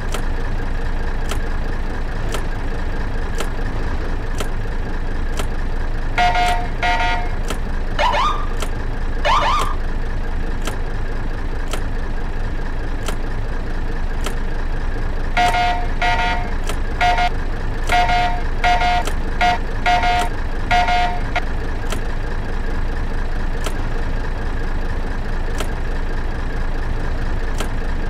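Patwal escort vehicle's electronic siren-horn being tested: a quick cluster of short honks, then two rising whoop chirps, and later a run of about ten short beeps. A steady high whine and a regular click about once a second run underneath.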